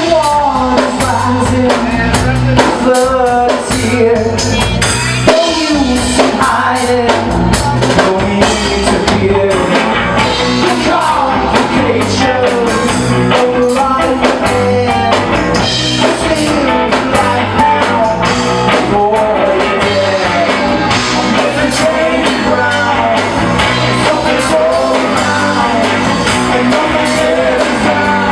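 Live rock band playing loudly: drum kit, guitar and bass, with a voice singing over them.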